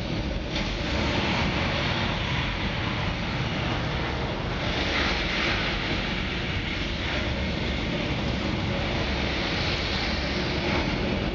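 Recorded Saturn V launch noise played back over loudspeakers: a steady heavy rumble with hiss that swells about a second in and turns brighter and hissier around the middle.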